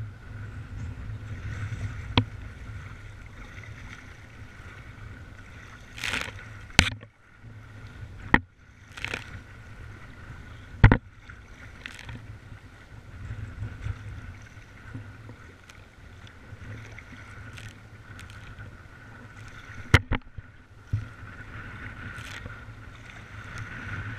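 Kayaking on rough, wind-whipped sea: a steady wind rumble on the microphone, water splashing and sloshing against the boat, and several sharp knocks.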